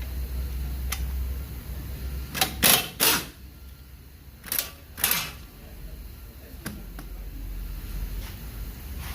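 Hand tools working on the front hub's mounting bolts: a few faint ticks, then a cluster of five sharp metallic clacks from about two and a half to five seconds in, over a steady low hum.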